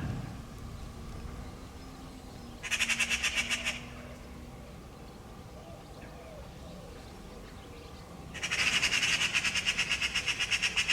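Eurasian magpies giving their harsh, rapid chattering alarm rattle, about nine notes a second: a short burst about three seconds in, then a longer run near the end. This is the mobbing call magpies use against a predator, here a cat near their fledgling.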